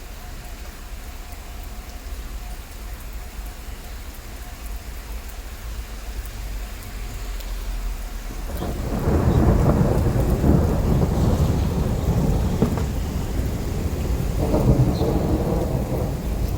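Rain falling steadily, with a low rumble of thunder that builds loudly about halfway through and rolls on, swelling again near the end.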